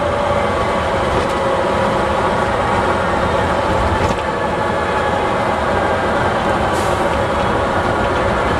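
Leyland engine of a Bristol VR double-decker bus running steadily under way, heard from inside the passenger saloon, with a couple of light rattles.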